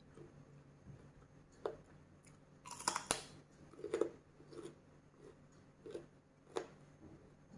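A person chewing and biting crisp raw greens close to a clip-on microphone: irregular crunches and wet mouth clicks, loudest in a short cluster about three seconds in.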